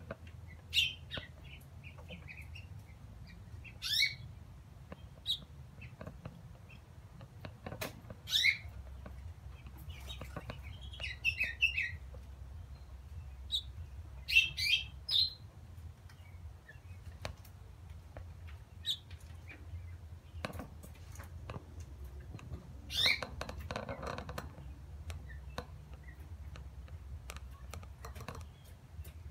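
Young house finch chirping: short, high single calls at irregular intervals, about a dozen in all, with a couple of quick runs of chirps near the middle. A faint steady low hum sits underneath.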